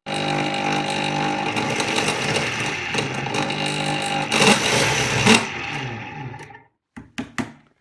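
Clatronic KM2718 1000 W stand mixer running with its casing open, a steady motor hum under a loud, rough mechanical noise: this excessive noise is the fault being traced. It surges louder twice about four and five seconds in, then is switched off and runs down, followed by a few clicks.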